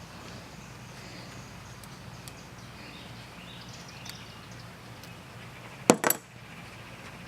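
Two sharp knocks in quick succession about six seconds in, over a low steady hum and faint intermittent scratching.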